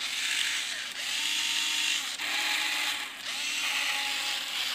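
Small 3.6 V cordless screwdriver (EZ7410) running with no load on a test run in its second setting, its motor whirring steadily with a faint whine. The sound dips briefly three times.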